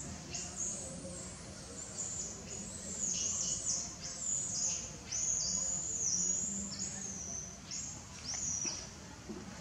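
A rapid run of high-pitched squealing calls, about a dozen in all, each rising and then falling away.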